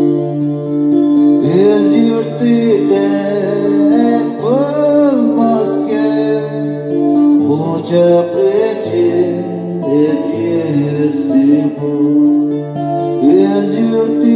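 Steel-string acoustic guitar played with a pick, with a voice singing a wavering melody over it in stretches.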